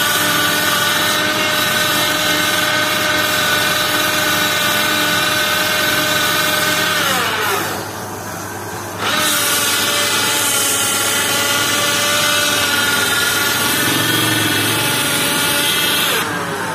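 Electric motor of a homemade wood lathe running with a steady whine. About seven seconds in it is switched off and its pitch falls as it coasts down. It is started again about two seconds later and coasts down once more near the end.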